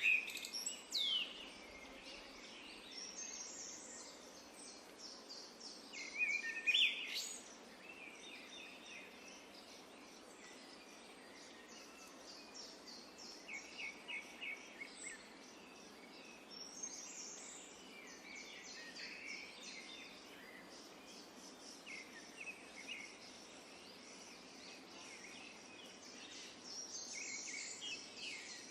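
Several wild birds chirping and calling over a steady background hiss, with louder, sharper calls about a second in and again around six to seven seconds in.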